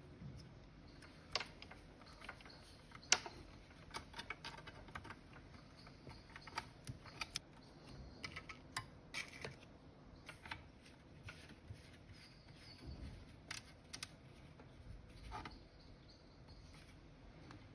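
Irregular light clicks and taps of hand work on small parts, a few sharper knocks among them, the loudest about three seconds in.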